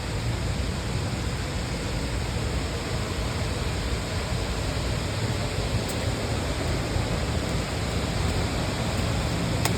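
Steady rushing of a nearby waterfall, an even wash of falling water.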